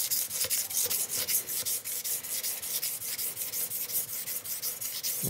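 Steel knife blade (CPM-M4) being stroked rapidly back and forth, edge-leading and edge-trailing, on a wet 30 micron (about 2000 grit) diamond sharpening plate: an even run of scraping strokes, several a second. The sound is smoother, less coarse, as the bevel is refined at this grit.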